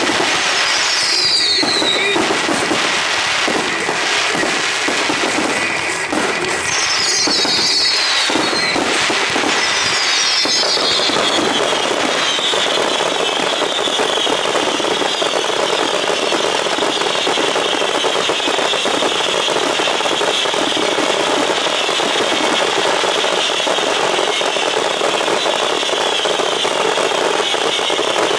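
Fireworks finale barrage: aerial shells and cakes bursting and crackling without a break. Several whistles slide down in pitch during the first dozen seconds, and a steady high whistling runs on under the bangs after that.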